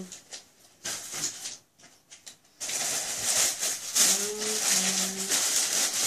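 A plastic shopping bag rustling and crinkling as items are rummaged out of it, with a few faint rustles at first, then loud and continuous from about two and a half seconds in. A short hummed note about four seconds in.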